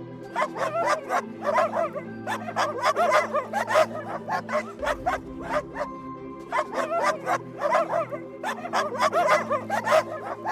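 A dog barking again and again in quick, sharp barks over steady background music, with a short lull around the middle.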